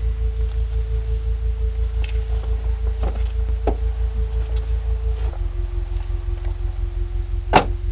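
Background score: a held synthesizer tone over a steadily pulsing bass, the held note stepping down to a lower pitch about five seconds in. A single sharp click sounds near the end.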